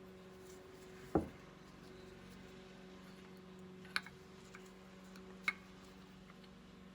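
Small parts of a Bing carburetor being handled during disassembly: one knock about a second in, then two sharp clicks, over a faint steady hum.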